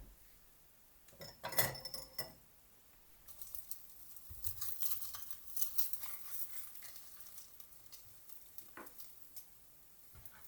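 Kitchen utensils and dishware clinking: a ringing clink about a second and a half in, then several seconds of rapid scraping and clicking, and a single knock near the end.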